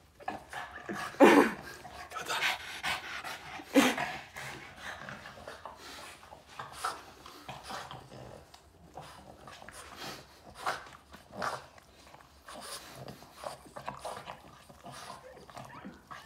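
Boston terrier breathing and licking close to the microphone: a string of short irregular sniffs and wet lapping sounds. Two louder brief pitched sounds come about a second and about four seconds in.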